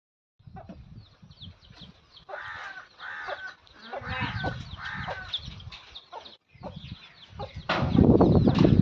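Chickens calling, with chicks peeping in many short, high, falling chirps and hens clucking in longer calls. A loud low rumbling noise comes in near the end.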